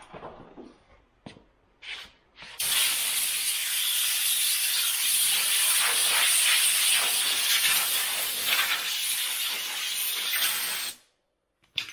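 Compressed-air blow gun hissing steadily for about eight seconds as it blows through a used cylindrical pleated air filter to clear dust from it, then cutting off suddenly. A few light knocks from handling the filter come before it starts.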